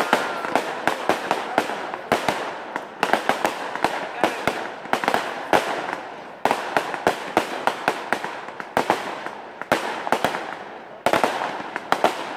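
Fireworks display: shells bursting overhead in rapid, irregular bangs and crackles over a continuous rushing hiss, with a fresh loud barrage starting about three, six and a half and eleven seconds in.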